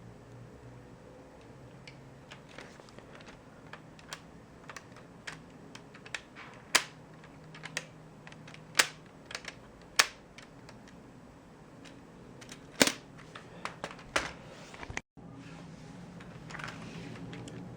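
Irregular light clicks and taps, a few much sharper than the rest, over a low steady hum; the sound drops out briefly near the end.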